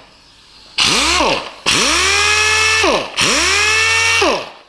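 Black Ridge palm-lever air orbital sander with a square pad, triggered three times: each run spins up quickly to a steady whine and winds down when the lever is released. The first run is short and the next two last about a second and a half each.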